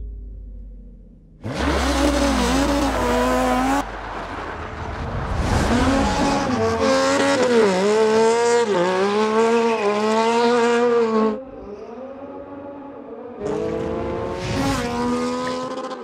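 Streetbike engine held at high revs during a burnout, the rear tyre spinning and squealing on the asphalt. The revving comes in bursts that start and cut off abruptly, the longest and loudest through the middle.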